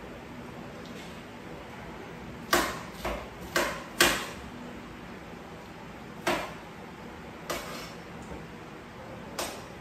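Dishes and kitchen utensils knocked and set down on a kitchen counter: about seven separate clacks at irregular spacing, the loudest clustered a few seconds in, over a faint steady hum.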